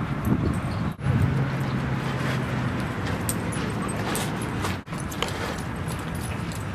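Outdoor ambience with wind rumbling on the microphone. A low steady hum runs for a couple of seconds, and light scuffing ticks follow through the middle.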